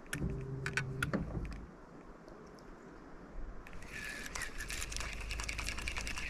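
A short low hum with a few clicks in the first second and a half. Then, from about three and a half seconds in, a fishing reel being wound: a steady whir with rapid clicking.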